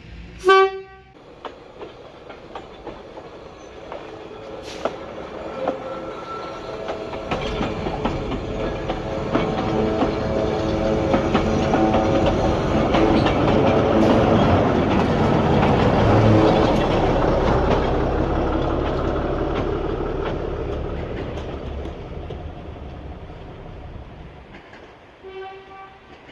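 A train sounds a short, loud blast, then runs past with its wheels clicking over the rail joints, the rumble building to a peak about halfway through and fading away. A second, shorter blast sounds near the end.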